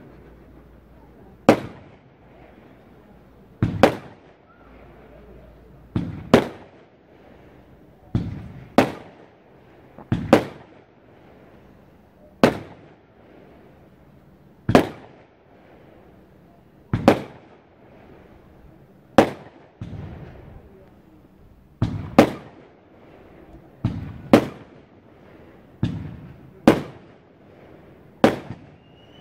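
A Vulcan/Linders Grand Cake Box of 20–50 mm calibre firing shot after shot, about one every two seconds. Each shot is a sharp report, often a launch thump followed a moment later by the crack of the break, and each trails off briefly.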